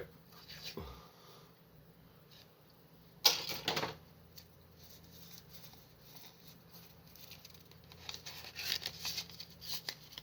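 Foil Pokémon booster-pack wrapper ripped open in one sharp tear about three seconds in. Near the end there is light rustling and clicking as the cards are handled.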